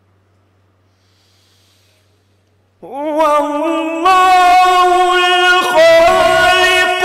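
Near silence with a faint low hum, then about three seconds in a man's voice begins melodic Quran recitation (tilawat), loud and held in long, ornamented notes.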